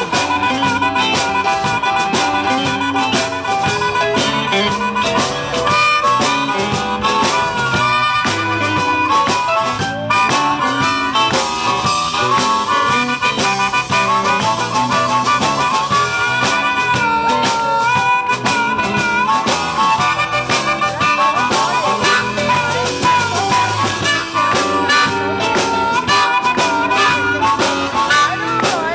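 Live blues band playing, with a harmonica solo in long held notes that bend in pitch, over electric guitar and a steady beat.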